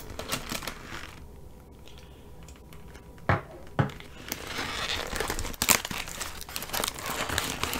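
Cardboard and plastic packaging crinkling and rustling as a knife package is handled and opened, growing busier over the second half. Two light knocks a little over three seconds in, as a folding knife is set down on the wooden tabletop.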